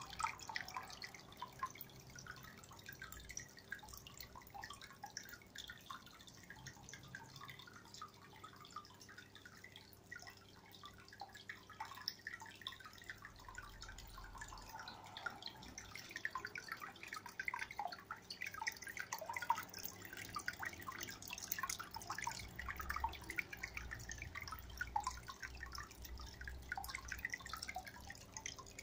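Water from a Nano Cube 60 aquarium's filter outlet trickling and splashing into the tank in a continuous patter of small drips, over a faint steady pump hum.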